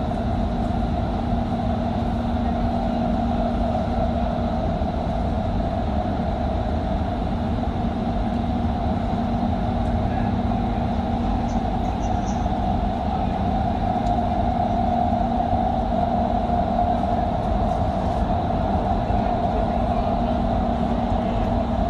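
Doha Metro train running at speed through an underground tunnel, heard from inside the front car: a steady low rumble with a constant hum over it.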